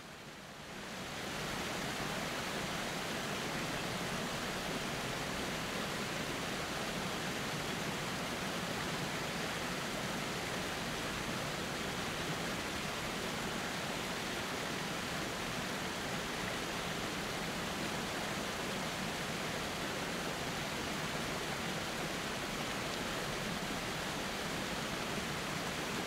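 Steady rushing roar of a waterfall and creek, fading in over the first second or two and then holding even.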